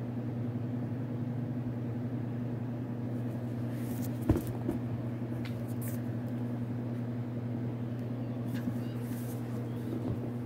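A steady low electrical hum, with a single knock about four seconds in and a few light rustles as a hardcover book is turned over and handled.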